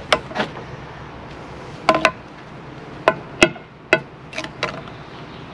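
Concrete lintel being tapped down into its mortar bed to bring it level: about nine sharp, ringing knocks from a metal tool, several in quick pairs.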